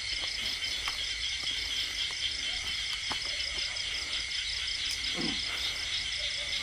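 Night insect chorus dominated by crickets: a steady, shrill, fast-pulsing trill, with a few faint clicks.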